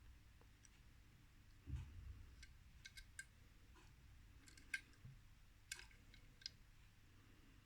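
Faint scattered clicks and light taps from handling a small diecast toy car, about half a dozen over several seconds.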